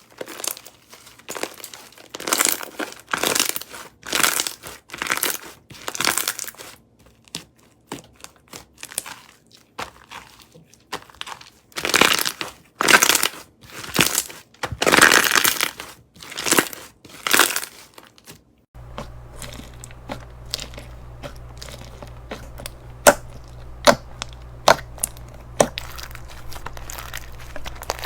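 Slime mixed with plastic perler beads being squeezed and stretched by hand, giving repeated crunchy, crinkling bursts with short pauses between. About two-thirds of the way in, the sound switches to a steady low hum with sharp single pops and clicks from the slime.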